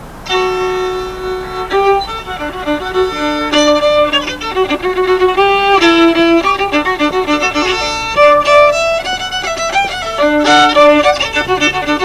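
Unaccompanied fiddle playing a tune: a melody of short bowed notes changing quickly from one pitch to the next.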